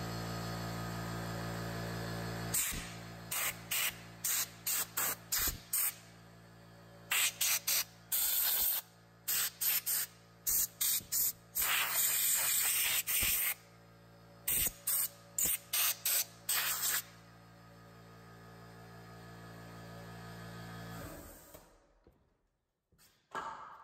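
Compressed-air blow gun blasting sawdust out of an opened circular saw's housing, in a long run of short bursts with one longer blast of about two seconds. Underneath is the steady hum of an air compressor running, which cuts off about 21 seconds in.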